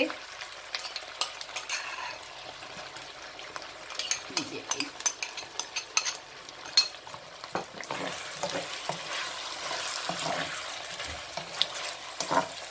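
Chicken frying in a pan while yogurt is spooned in: a metal spoon clicks and scrapes against the bowl and pan over the sizzle. About eight seconds in, the sizzle grows louder and steadier as the yogurt is stirred into the hot pan with a wooden spatula.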